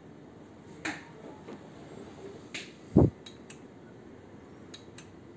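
A few light, sharp clicks spread through, with one louder dull thump about three seconds in, over a faint steady hiss.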